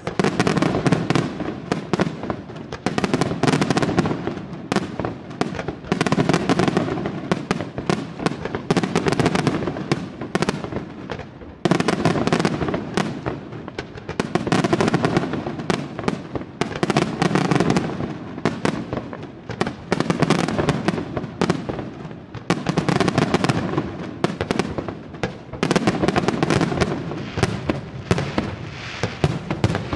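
Aerial fireworks display: a rapid, continuous barrage of shell bursts and sharp reports with crackle. It swells and eases in waves every couple of seconds, with a sudden loud volley about twelve seconds in.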